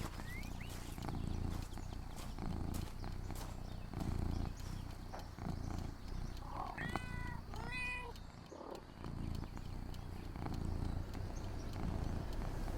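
A cat purring close by in slow, regular pulses, with two short high calls a little past the middle.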